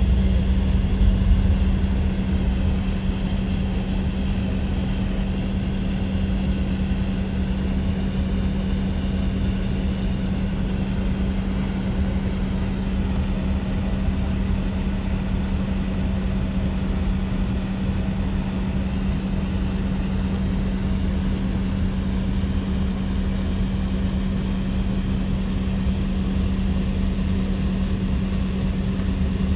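Jet airliner taxiing, heard inside the cabin: a steady engine drone with one constant low hum. A heavier low rumble in the first couple of seconds eases to an even level.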